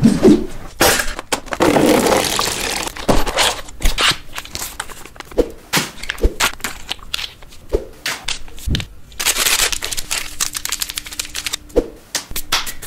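A quick, irregular string of sharp knocks and clacks, mixed with two longer stretches of swishing noise, one early and one near the end.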